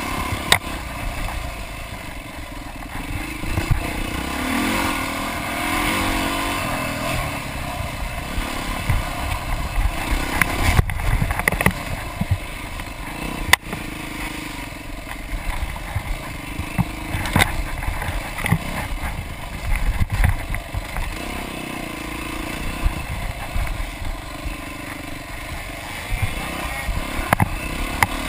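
Off-road dirt bike engine running at rising and falling revs along a rough trail, with several sharp knocks and rattles from the bike jolting over bumps.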